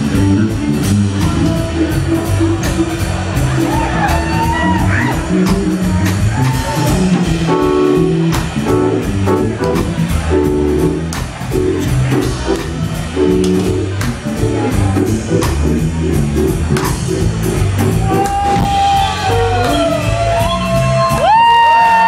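Live rock band playing in a large room, drums and guitar with a regular beat. Near the end a voice holds loud high notes that slowly fall in pitch.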